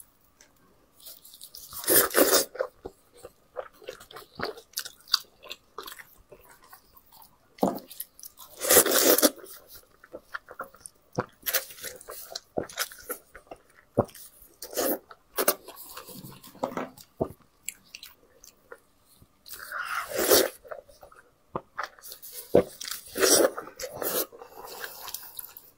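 Close-miked eating of braised sheep's head: biting and chewing meat with wet mouth sounds and many small clicks, and louder bursts about 2, 9, 20 and 23 seconds in.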